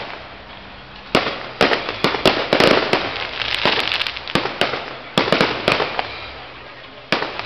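Aerial firework shells bursting overhead: a run of sharp bangs starting about a second in, packed closely with crackling through the middle, then a few more spaced bangs near the end.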